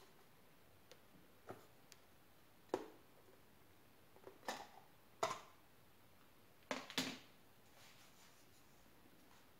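Faint, irregular clicks and knocks of things being handled and set down on a kitchen counter. There are about seven, the strongest a little under three seconds in, at about five seconds and at about seven seconds.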